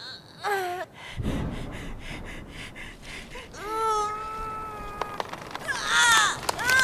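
Female werewolf transformation sound effect: a woman's voice whimpering and wailing in short falling and held cries. A low rumble comes in about a second in, followed by a fast pulsing pattern of about four beats a second.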